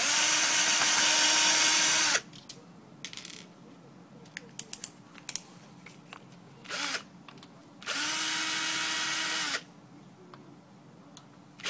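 Power drill running in reverse to back out the screws on the bottom corner of a cubicle panel: one run of about two seconds, a brief blip, and a second run of under two seconds. Light clicks and handling sounds fall in between.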